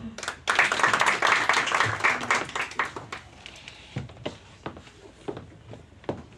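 Audience applauding, dense from about half a second in to about three seconds, then thinning out to a few scattered claps.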